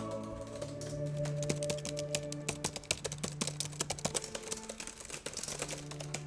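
Fast typing on an HP laptop keyboard: a dense, irregular run of key clicks over background music with sustained notes.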